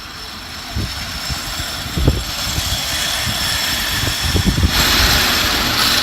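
A ride down a playground slide: a steady rumbling that grows louder, rising sharply about five seconds in, with scattered low thumps.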